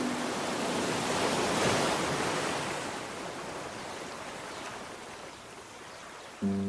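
Ocean surf: a wave breaking and washing in, swelling to its peak about two seconds in, then fading slowly as it runs out. Music comes back in just before the end.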